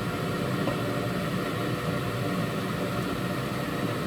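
Wall-mounted gas boiler's burner running steadily at full power in heating mode, gas valve outlet pressure about 1.2 kPa: an even combustion noise with no whistle or squeal, the sign of normal burning at this pressure.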